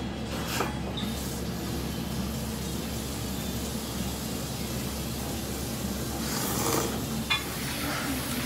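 Steady low hum of a small soba shop's kitchen machinery, with a short hiss about six and a half seconds in and a light click just after.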